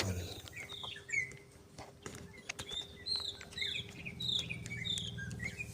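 Small birds chirping: a run of short, quick chirps and twitters, with a faint steady hum underneath.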